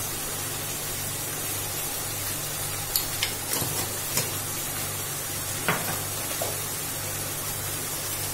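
Onion-tomato masala sizzling in oil in a kadai: a steady hiss over a low hum, with a few light clicks between about three and six seconds in.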